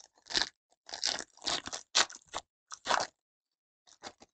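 Foil trading-card pack wrapper crinkling and tearing open in a run of sharp, irregular crackles over about three seconds, tailing off to a few faint rustles near the end.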